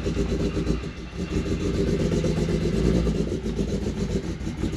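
BMW E46's engine running, heard from inside the cabin, as the car pulls away on a freshly installed Tilton clutch. The engine sound dips briefly about a second in, then holds steady.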